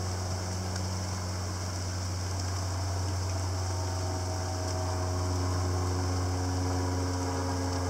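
A steady low machine hum, like a motor or fan running, with a faint even hiss over it.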